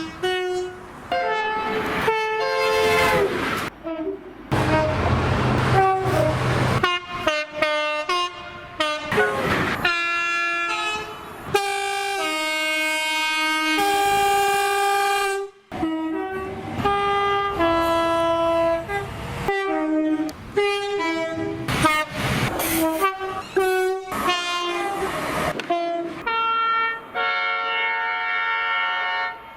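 A rapid run of British train horn blasts cut one straight after another. Many are two-tone horns stepping between a high and a low note, some short toots and some held for a couple of seconds, with train running noise between some blasts.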